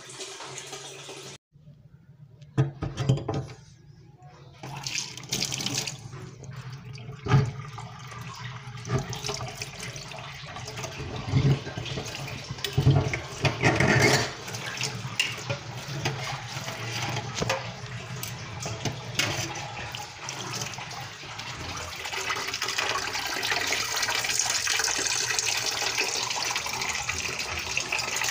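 Knocks and clatter of handling under a kitchen sink, then water from the sink's drain pipe pouring steadily into an aluminium pot, louder over the last few seconds: the unclogged drain is flowing freely.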